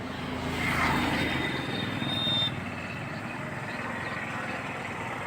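A motor vehicle's engine running past, swelling and easing off over the first few seconds, then a steady engine drone.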